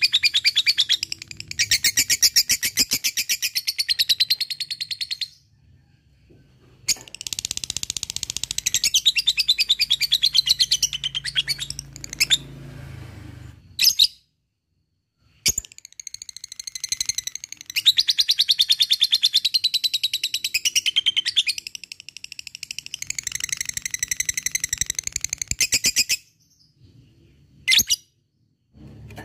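Lovebird giving long, rapid chattering trills (ngekek): several runs of fast-repeated high notes, each lasting a few seconds, with short breaks between them.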